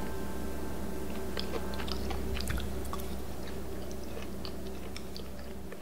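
Crunchy chewing of stir-fried small dried anchovies: many small irregular crunches and clicks over a steady low hum.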